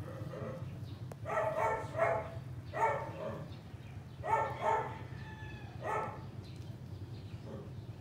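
A dog barking about seven times, in single and paired barks spread over several seconds, over a steady low hum.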